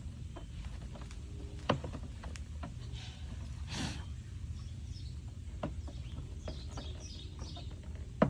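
Scattered sharp clicks and taps from hands and tools working on a car's rear license plate light housing, with a brief scrape about four seconds in. Birds chirp faintly in the background near the end, over a low steady rumble.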